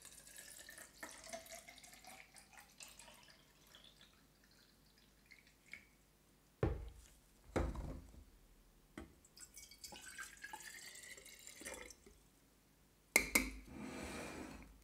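Water poured from a plastic jug into a measuring cylinder, the pitch rising as it fills. Two knocks follow about halfway through, then a shorter top-up pour with rising pitch. Near the end comes a louder splashing pour from the cylinder into a brown glass bottle.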